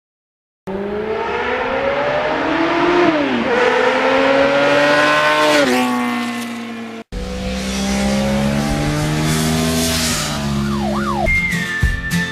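Yamaha FZR1000 inline-four motorcycle engine accelerating hard, its pitch climbing and falling back twice as it shifts up through the gears, then running more steadily after a sudden cut about seven seconds in. Near the end a steady high tone and sharp clicks come in.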